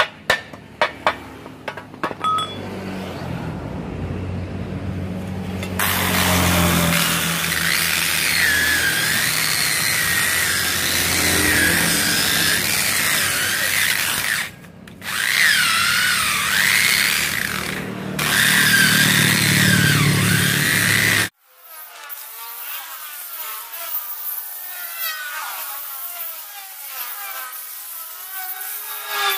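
A few hammer blows on the rusty cast-iron base of a cut-off saw, then an angle grinder with a wire cup brush running against the cast iron, scrubbing off rust, its whine wavering with the pressure. About two-thirds of the way through it cuts abruptly to a quieter, thinner grinding.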